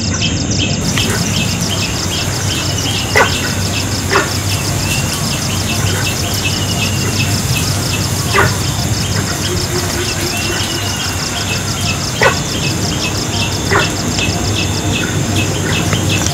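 Tropical forest ambience: a steady, fast-pulsing insect buzz with bird chirps over it. About five sharp cracks come at irregular moments.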